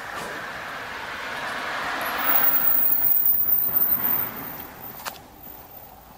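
A car driving past on the road, its tyre and engine noise swelling to a peak and then fading away over a few seconds.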